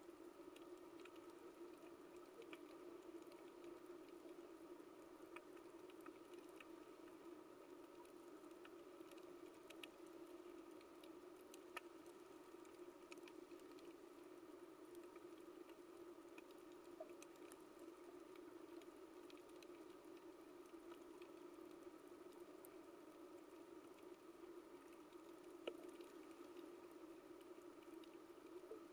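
Faint underwater coral reef ambience: scattered crackling clicks over a steady low hum, with a few sharper clicks about twelve seconds in and near the end.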